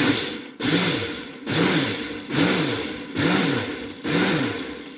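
Ninja blender pulsed about six times, roughly once a second, chopping a smoothie of fruit, greens and ice water. Each pulse is a short loud whir whose motor pitch rises and then falls as the blade spins up and slows.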